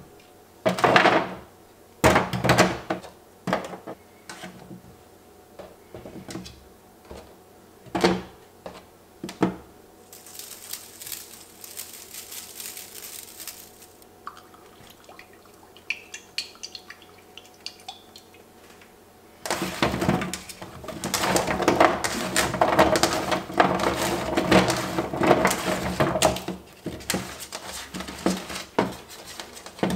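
Kitchen prep sounds: a few separate sharp knocks, then a hiss lasting a few seconds, then a dense clatter and rustle of hands tossing oiled apple, onion and carrot pieces on an aluminium sheet pan, beginning about two-thirds of the way in.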